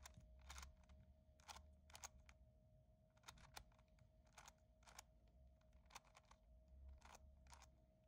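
Faint clicks of a 4x4 speedcube's layers being turned, one every half second or so at an uneven pace.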